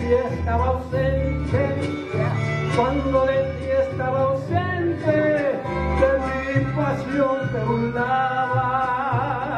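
A man singing along to a karaoke backing track of guitars and violins, holding some long notes with vibrato near the end.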